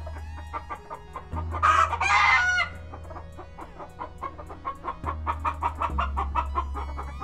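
A flock of chickens clucking, with a rooster crowing about a second and a half in, the loudest sound, lasting about a second.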